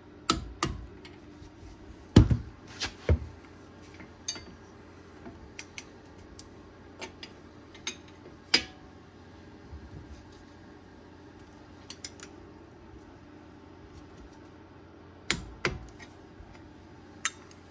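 Sharp metal clicks and clinks from a torque wrench and a second wrench on a brake caliper's bolts as they are torqued to 44 foot-pounds. They come in scattered groups, loudest about two seconds in and again near the end.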